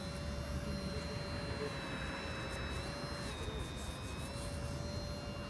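RC hydraulic excavator's electric hydraulic pump running with a steady whine whose pitch shifts as the boom and bucket work, dropping a little about three seconds in. A low rumble sits beneath.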